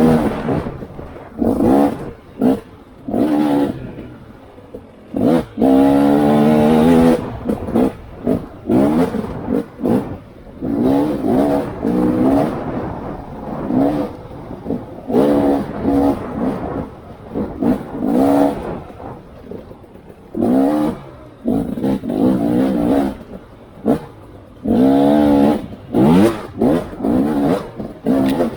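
Off-road vehicle engine revving in repeated short bursts as the throttle is opened and shut on a twisty trail, its pitch rising and falling every second or two with quieter dips between.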